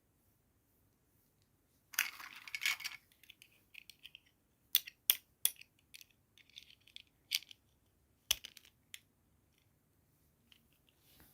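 Toy packaging being handled: after a short crinkle, a series of sharp clicks and taps, like small hard plastic pieces being knocked and set down, with light crackling between them.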